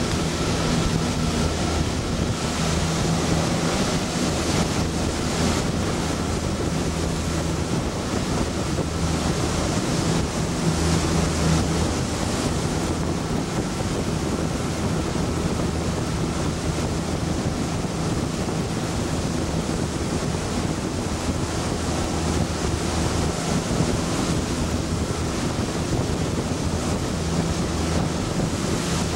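Fishing boat underway: its engine runs at a steady low hum under the rush of water along the hull, with wind buffeting the microphone.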